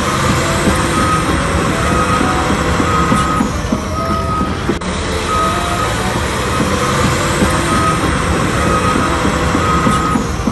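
A looped vehicle sound effect: dense rumbling noise with short high beeps in an uneven pattern, the whole sequence repeating about every five seconds.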